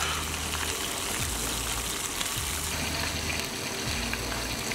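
Chicken pieces deep-frying in a kadai of hot oil, a steady sizzle, under background music whose bass notes change every second or so.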